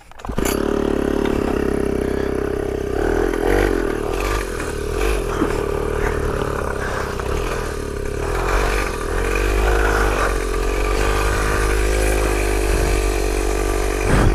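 Small two-stroke engine of a mini pocket dirt bike coming in suddenly just after the start, then running steadily under way while the bike is ridden, its pitch rising and falling a little with the throttle.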